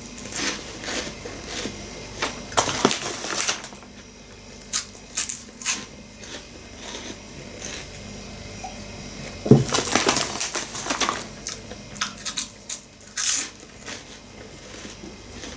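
Close-up chewing of crunchy puffed corn sticks: irregular crunches and crackles, with denser clusters about three seconds in and again about ten seconds in.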